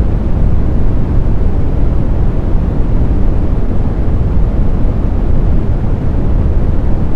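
Pure brown noise: a steady, unbroken deep rush, loudest in the low end and fading toward the highs.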